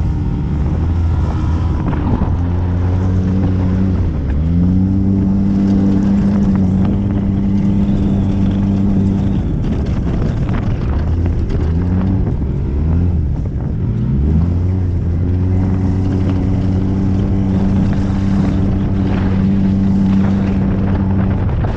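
Polaris RZR S side-by-side's engine running hard, heard from on board. It holds a steady pitch for several seconds at a time, with the pitch dropping and climbing back around four seconds in and again between about ten and fourteen seconds as the throttle eases and opens on the trail.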